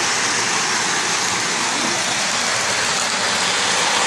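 Lionel 1993 Scout toy steam locomotive pulling freight cars on three-rail O-gauge track: a steady rushing of metal wheels on the rails, a little louder near the end as the locomotive comes close.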